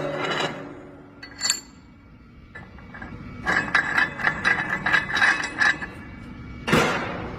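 Feed pellet machine with crusher clattering: a single ringing metallic clink, then about two seconds of rapid rattling clicks with a ringing tone through them, and a sudden loud clatter near the end.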